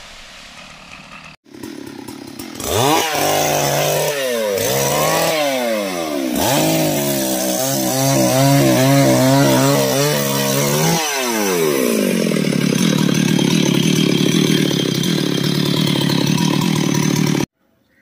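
Chainsaw revved up and down several times, then held at a steady high speed, cutting off suddenly near the end.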